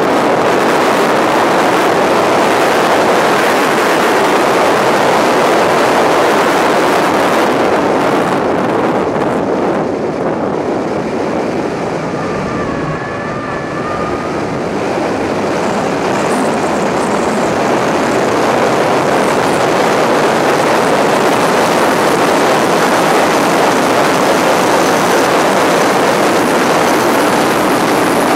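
Subaru WRX turbocharged flat-four running hard at track speed, mostly buried under a steady rush of wind over the car-mounted microphone. The noise eases slightly about ten seconds in, when a faint wavering high tone comes through for a few seconds.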